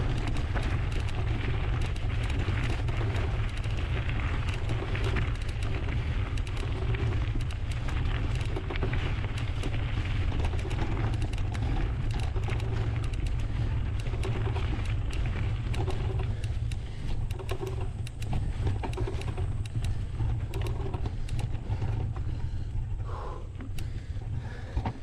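Wind buffeting the microphone of a GoPro action camera on a moving Kona mountain bike, a steady low rumble, with tyres rolling over the trail and the bike rattling in quick clicks. The clatter eases off in the last several seconds.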